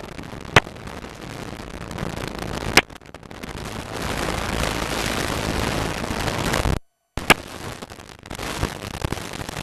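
Rushing airflow and engine noise in the open cockpit of a de Havilland Tiger Moth biplane in flight, growing louder from about four seconds in, broken by a few sharp clicks. The sound drops out completely for a moment just before seven seconds.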